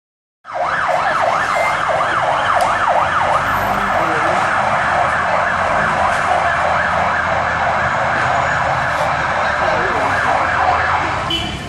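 Fire engine siren in a fast yelp, its pitch sweeping up and down several times a second. It stops shortly before the end.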